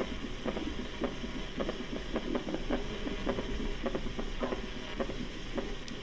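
Recorded heart sounds of a summation gallop: quick, repeating dull thuds over a steady low hum. The third and fourth heart sounds are fused into one extra beat in diastole, which happens when a fast heart rate shortens diastole.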